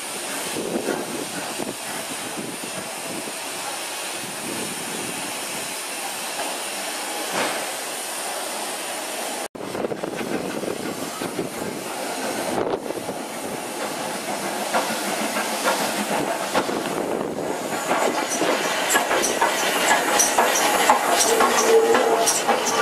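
Tender steam locomotive running slowly into a station platform with steam hissing steadily; its wheels clatter over the rail joints, louder as it draws close in the last several seconds, with a brief squeal near the end.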